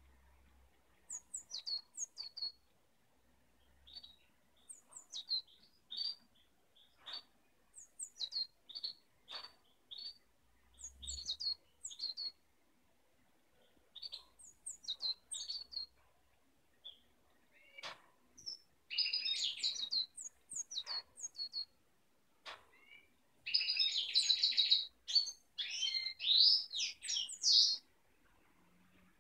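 Blue tit calling: short, thin, high notes, each falling in pitch, in small groups. In the second half they turn into louder, rapid chattering.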